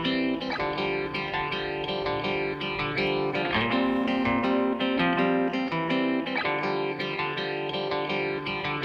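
Background music led by guitar, with notes plucked in a steady rhythm.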